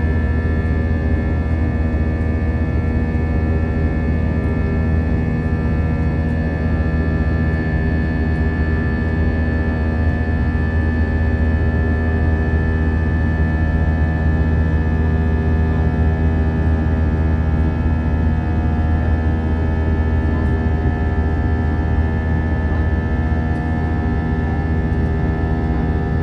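Airbus A321-200's jet engines running steadily, heard inside the passenger cabin as a constant low drone with several steady whining tones above it.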